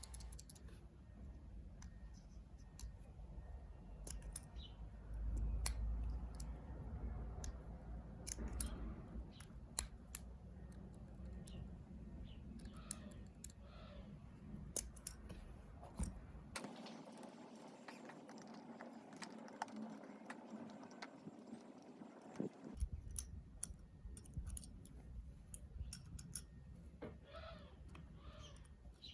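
Faint, scattered sharp clicks and light scrapes of small objects being handled close up, over a low rumble that drops out for several seconds in the middle.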